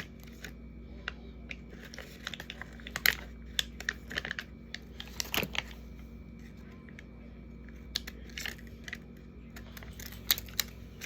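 Scissors cutting sticker sheets: irregular short snips and paper crinkles, with a faint steady hum underneath.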